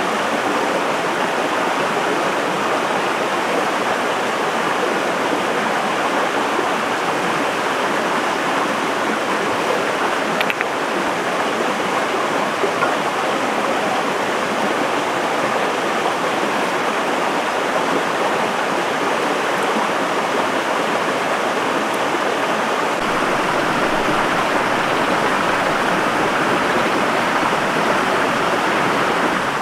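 Forest stream running, a steady unbroken rush of water.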